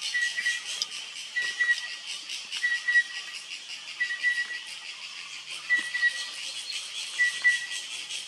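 Chestnut-winged cuckoo calling: a short, clear whistled note, often doubled, repeated six times at about one-and-a-half-second intervals. Under the calls runs a continuous high, rapidly pulsing buzz.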